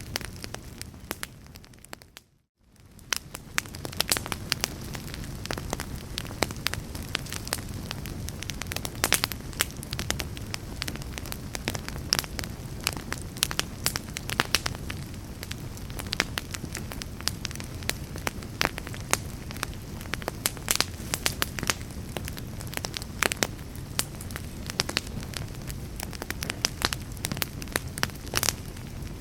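Fire burning in a fireplace, crackling with frequent sharp pops over a low steady rumble. About two seconds in the sound fades away almost to silence, then fades back in within a second or two.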